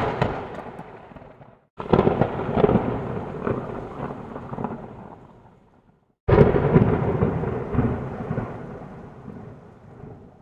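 Thunder sound effects played one after another: a thunderclap fading out, then two more that start suddenly about two and six seconds in, each rumbling away over about four seconds, with short silences between.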